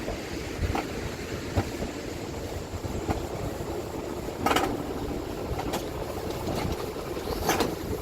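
Roller coaster cart running down its track: a steady rumble with several sharp clacks scattered through.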